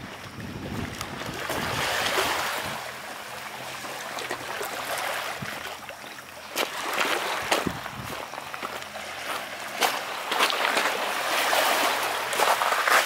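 Small sea waves lapping and splashing against a pebble shore, swelling and easing, with sharper splashes in the second half.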